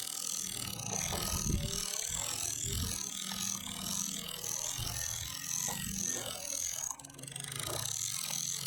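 Fishing reel ratcheting steadily, a continuous mechanical clicking.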